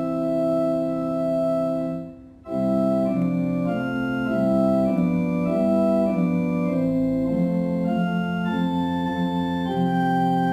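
Organ playing a hymn tune in sustained chords. A held chord breaks off about two seconds in, and after a short gap the tune moves on chord by chord.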